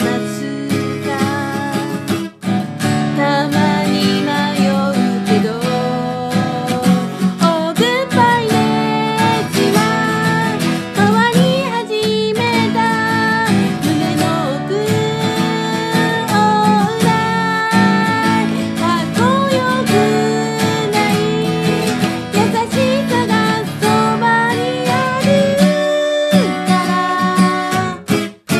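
Steel-string acoustic guitar strummed in steady chords, accompanying a woman singing a pop ballad melody over it.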